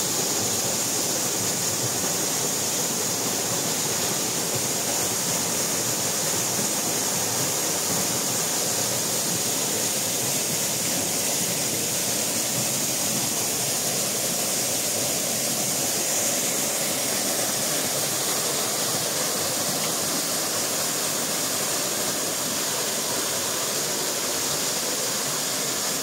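Steady rushing of a waterfall pouring into its plunge pool.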